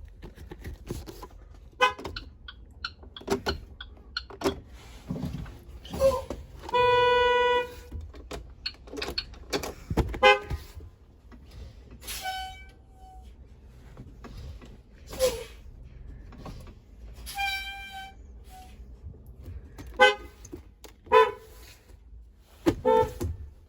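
School bus horns sounding in a string of short toots, with one steady blast of about a second around seven seconds in and shorter honks a little higher in pitch later on.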